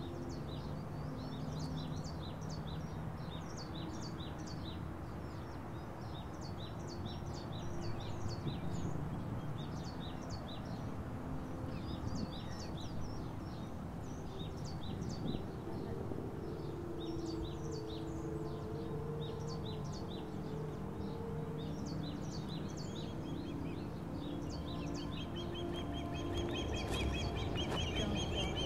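Small birds chirping over and over, short high calls, over a soft bed of slow held low notes. From about 26 seconds a thin steady high tone joins in.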